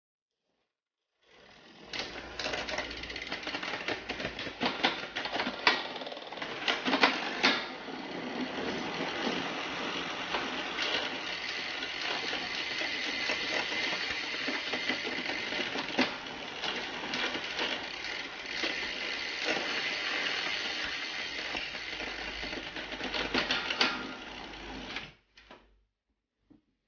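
Bicycle drivetrain running on a freshly adjusted Shimano Ultegra mechanical rear derailleur. The chain rattles steadily over the spinning cassette and derailleur pulleys, with sharper clicks as it shifts between sprockets. It starts about a second in and stops shortly before the end.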